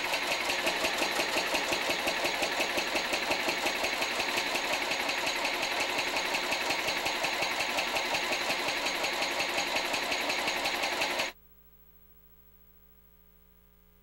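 Electric inertial propulsion drive, a modified Dean drive, running in neutral with its shifters off: a steady, rapid rhythmic mechanical clatter. It cuts off suddenly about eleven seconds in.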